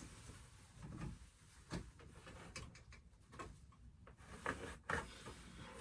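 Quiet handling sounds: scattered light knocks, clicks and rustles as the large plastic parts of a Halloween animatronic are handled and fitted together.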